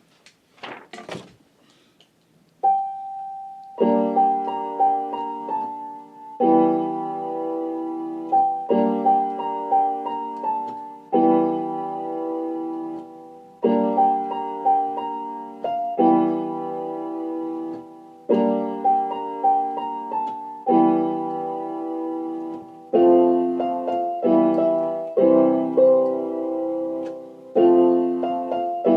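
Background piano music. A few short noisy sounds come first, then a single held note, then sustained keyboard chords repeating at a steady, gentle pace.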